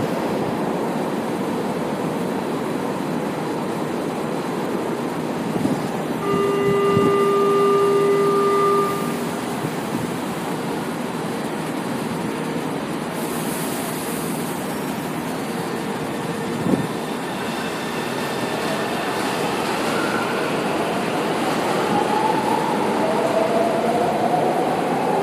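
São Paulo Metro Line 1 train at the platform: steady running and station noise, with a held warning tone for about two and a half seconds some six seconds in as the train prepares to leave, then the rumble of the train pulling out. Faint rising whines sound near the end.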